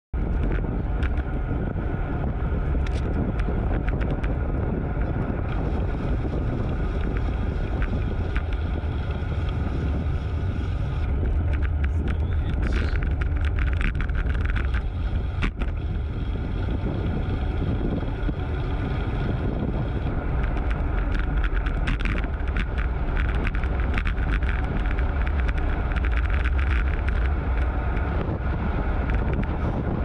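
Wind rumbling steadily on a bike-mounted GoPro's microphone while riding a road bike at speed, with a few brief clicks.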